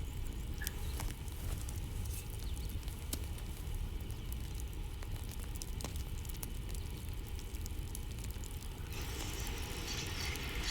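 Campfire ambience: wood fire burning with a steady low rumble and scattered sharp crackles and pops, and a brief hiss near the end.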